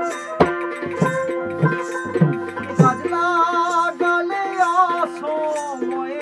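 Bengali Baul folk music: a steady drone under a melody with vibrato. In the first three seconds there are five hand-drum strokes about 0.6 s apart, each falling in pitch. From about halfway, a wavering vibrato melody line comes to the fore.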